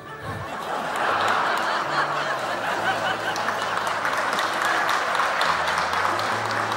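Room full of people laughing and chattering, with some clapping, swelling up within the first second and then holding steady.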